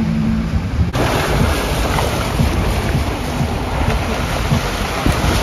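Wind buffeting the microphone: a loud, dense rushing noise that starts abruptly about a second in, after a short tail of background music.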